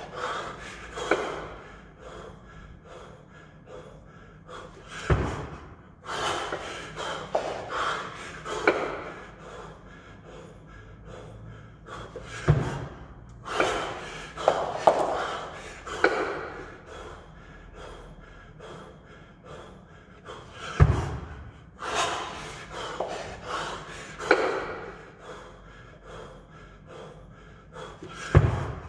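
Hard breathing and forceful exhales from a man doing kettlebell long-cycle reps with two 24 kg kettlebells. A dull low thud comes about every seven and a half seconds, four times, as the bells are cleaned to the chest, each followed by a cluster of sharp exhales through the jerk.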